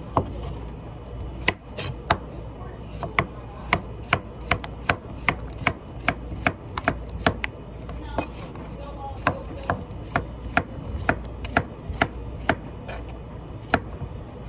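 Knife chopping through pork on a cutting board: sharp, separate knocks about two to three a second, with a short pause about eight seconds in.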